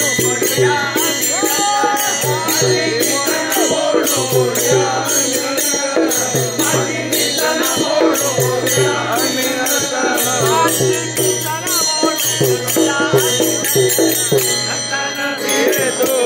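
A group of men singing a devotional bhajan together, kept in time by small brass hand cymbals (taal) struck in a steady rhythm.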